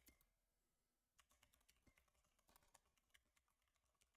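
Very faint computer keyboard typing: about a dozen light keystrokes at an uneven pace.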